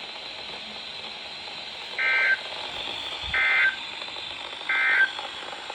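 Three short bursts of SAME digital data tones on a NOAA Weather Radio broadcast, a little over a second apart, over steady radio hiss. They are the end-of-message code that closes an alert.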